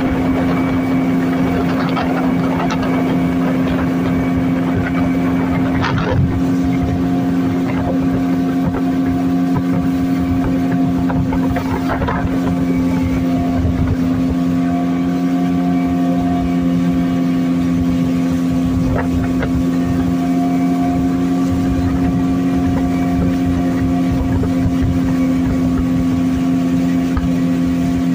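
A longboat's outboard motor running steadily at cruising speed, a constant loud drone, with a couple of short knocks about six and twelve seconds in.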